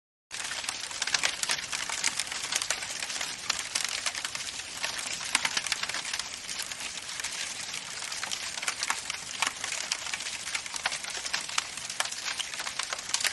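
Fire crackling: a steady hiss with many irregular pops and snaps, starting suddenly just after the beginning.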